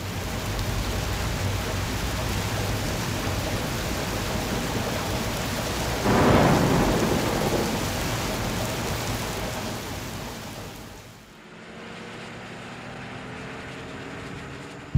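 Recorded rainstorm: steady rain with a roll of thunder about six seconds in, the storm effect that opens the track. It thins out in the last few seconds as faint music comes in.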